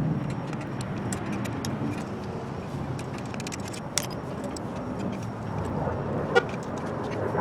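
Light metallic clicks and taps of parts and tools being handled during a fuel pump swap, with a sharper knock about four seconds in and another near the end, over a steady low rumble of road traffic.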